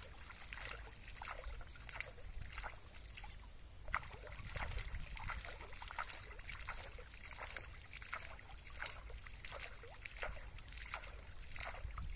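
Shallow water splashing and sloshing as a cast net is shaken and dipped by hand at the surface, in a quick, irregular run of small splashes.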